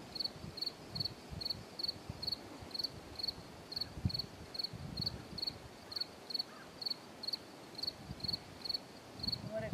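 A cricket chirping steadily, short pulsed chirps about twice a second, with a few soft low thumps underneath.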